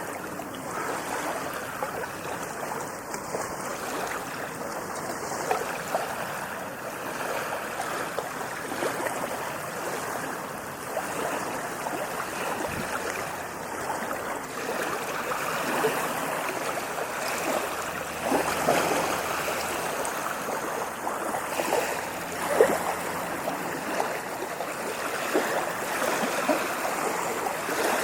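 Sea waves washing onto a beach: a continuous fizzing, splashing rush of surf with a few louder splashes.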